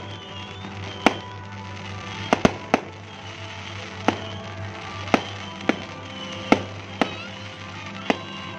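Aerial fireworks exploding: a string of about a dozen sharp bangs at irregular intervals, a few in quick pairs, with music playing underneath.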